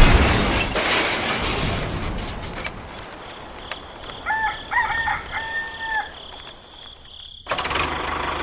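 A rooster crows once, a full cock-a-doodle-doo ending on a longer held note, about halfway through. A hiss that fades over the first few seconds comes before it, and a steady motor hum cuts in abruptly near the end.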